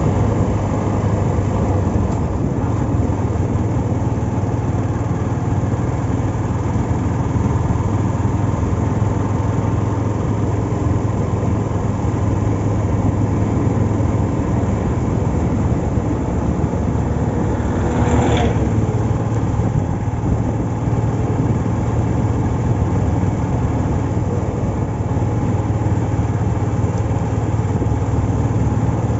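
Yamaha Fazer FI V2's 149 cc single-cylinder engine running steadily. About eighteen seconds in there is a brief higher sound that falls in pitch.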